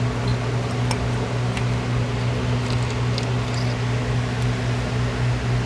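Steady hum of a shop fan running, with a few light clicks of tools against metal.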